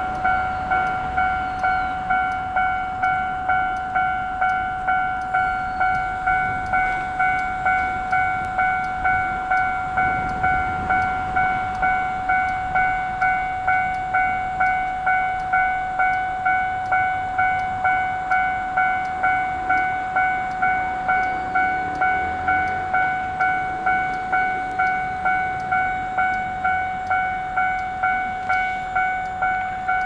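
Japanese railway level-crossing alarm ringing, one electronic bell tone struck about three times every two seconds; the crossing is warning that a train is coming.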